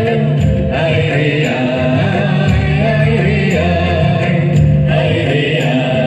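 Loud music with a singing voice over a bass line whose notes change every half second or so.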